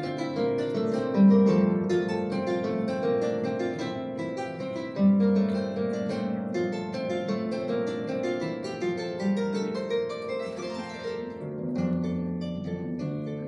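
Harp played solo, a quick stream of plucked notes over repeated bass notes, with a sweeping glissando about ten seconds in.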